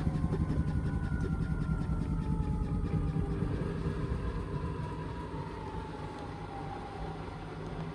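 Indesit washing machine's drum winding down from an intermediate spin with a full, unbalanced cotton load: the motor whine falls steadily in pitch while the drum's rhythmic rumble fades.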